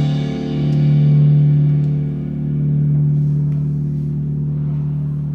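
Background music: a low chord held and ringing on, swelling and then slowly fading away.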